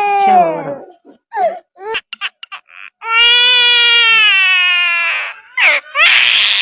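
Crying like an infant's: a high wail fading about a second in, short sobbing sounds, then a second long wail of about two seconds, and a harsher noisy cry near the end.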